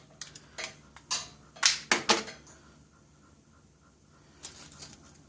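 A knife shaving the insulation off the end of 6-gauge copper building wire. There are about six short, sharp scraping strokes in the first two seconds or so, then only faint handling sounds.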